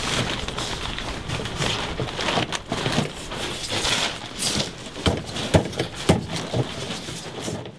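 Construction handling noise: irregular knocks, taps and rustling as foam ICF blocks and rebar are worked into place, with a few sharper knocks a little past halfway.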